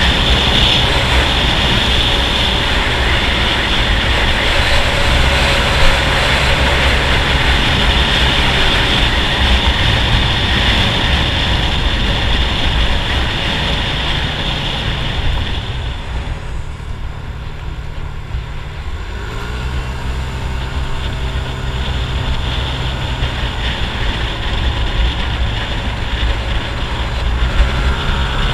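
Single-cylinder 150 cc scooter engine running at cruising speed under heavy wind rush on the microphone. About two-thirds of the way through, the wind eases as the scooter slows. The engine note then rises as it accelerates and settles back to a steady cruise.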